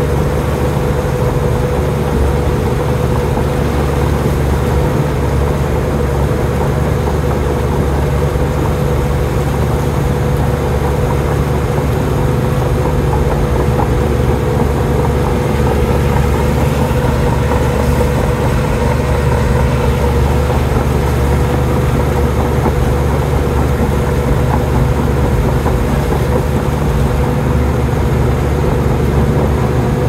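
Komatsu D53P bulldozer's diesel engine running steadily at an even pitch, a loud low drone with a steady whine above it.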